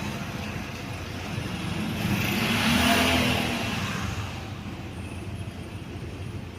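A road vehicle passing by, swelling to a peak about three seconds in and fading away, over a steady low hum.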